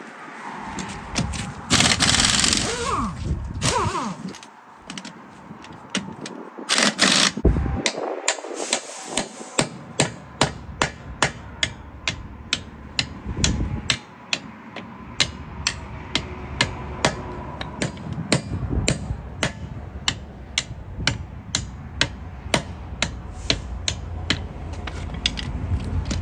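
Hammer blows on a car wheel, a steady run of sharp strikes about two a second, knocking a wheel that is stuck on its hub loose. Before the strikes start there are two short hissing sprays.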